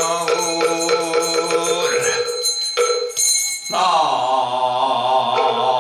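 A monk chanting a Buddhist invocation in long drawn-out notes, with quick even strokes of a wooden moktak, about three a second, under the first two seconds. The chant breaks off briefly near the middle, then resumes on a long held note.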